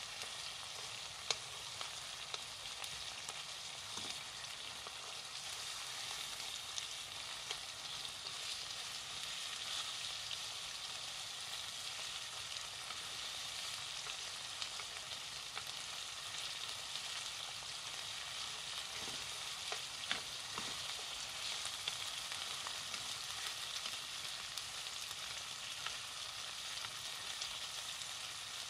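Chicken breast pieces sizzling in sunflower oil and miso-mayonnaise sauce in a frying pan: a steady frying hiss, with a few light taps of wooden chopsticks against the pan as the pieces are turned.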